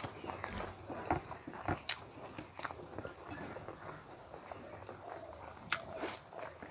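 Close-miked chewing and wet mouth sounds of someone eating rice and curried duck egg by hand, with small clicks and scrapes of fingers on a steel plate. A bite into the egg comes near the end.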